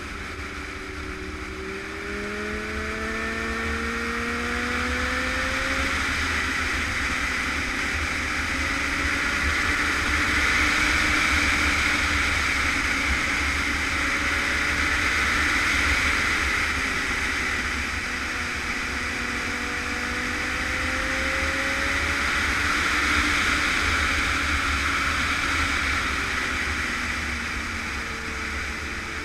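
Motorcycle engine running under way, its note gliding slowly up as the bike gathers speed near the start and again in the second half, under a steady rush of wind noise on the bike-mounted camera's microphone.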